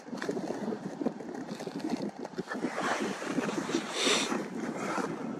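Wind buffeting the microphone: an uneven rushing noise with a stronger gust about four seconds in.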